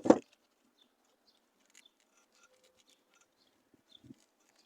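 A sharp knock right at the start, then faint small clicks and scrapes and a soft knock about four seconds in: parts being handled as the old fuel pump is taken out.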